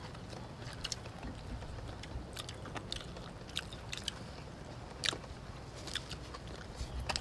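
Close-up eating sounds of people chewing chicken wings and lettuce by hand: scattered sharp mouth clicks, lip smacks and small crunches.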